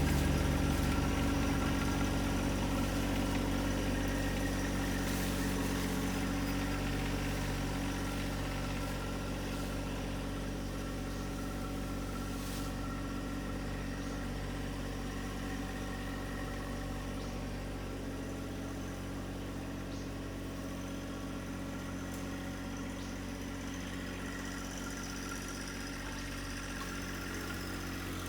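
John Deere 1025R compact tractor's three-cylinder diesel engine running steadily. It fades over the first several seconds, then holds an even note.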